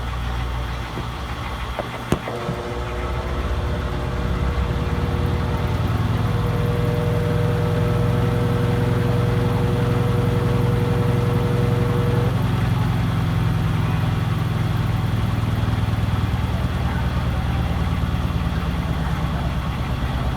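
Electrolux Essential Care LES11 top-loading washing machine in its spin cycle, the motor and drum running with a steady low hum and a fast rattle. There is one sharp click about two seconds in. A steady whine then lasts until about twelve seconds in, and the machine gets louder from about four seconds as the spin picks up speed.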